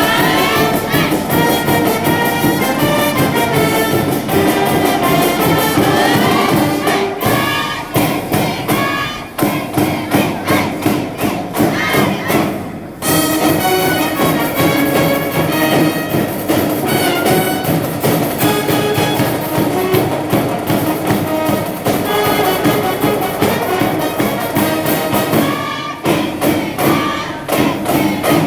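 High school brass band playing a baseball cheering tune: trumpets and other brass over a drum beat, with sharp drum hits.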